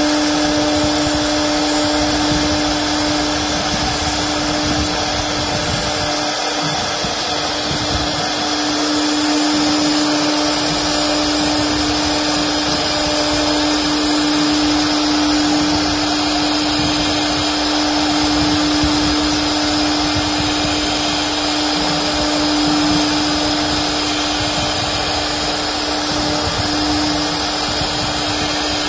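A 1325 CNC router's 4.5 kW air-cooled spindle running at constant speed while its bit carves a design into an MDF sheet. The sound is a steady whine over a continuous rushing noise, which only swells and dips slightly in loudness.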